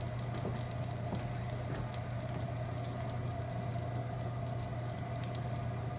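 Range hood fan running on high with a steady hum, over butter and shortening sizzling lightly in a hot cast iron skillet with scattered small pops; the fat is not yet sizzling hard enough for searing.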